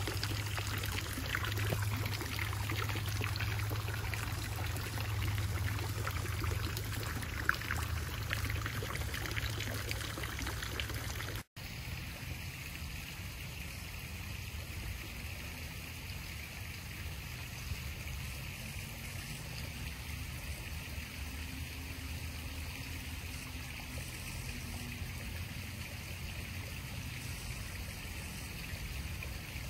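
Garden pond spitter fountain, a frog statue's jet of water splashing steadily into the pond. About eleven seconds in the sound cuts out for an instant, and a quieter, steady outdoor hiss follows.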